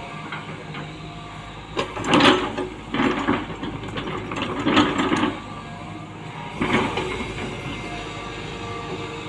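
Tata Hitachi hydraulic excavator running steadily while it works its boom, arm and bucket, with four louder surges of working noise at about two, three, five and seven seconds in.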